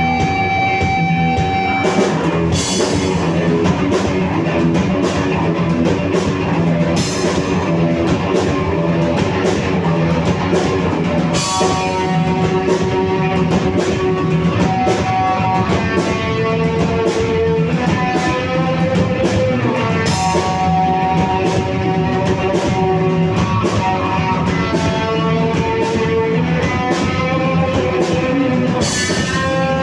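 Rock band playing live: electric guitar holding and sliding between sustained notes over bass and a drum kit, with cymbal crashes every few seconds.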